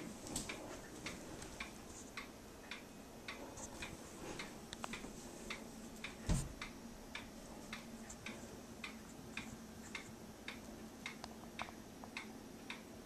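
A clock ticking steadily, about two ticks a second, with a single dull thump about six seconds in.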